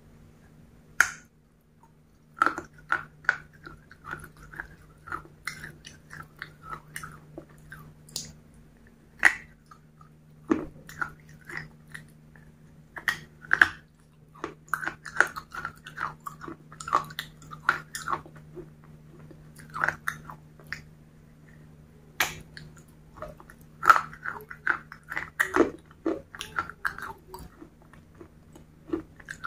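Biting and chewing of crunchy pieces of baked clay pot dipped in sauce: quick irregular runs of sharp crunches, with short pauses between mouthfuls. A faint steady low hum runs underneath.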